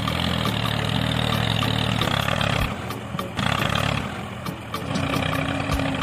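Tractor engine running steadily, easing off about halfway through, with a higher steady hum joining near the end.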